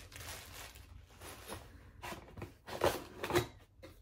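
Handling noises of unboxing: a small plastic bag of screws rustling as it is put down, then rummaging among packaging in a cardboard box, with two louder rubbing scuffs about three seconds in.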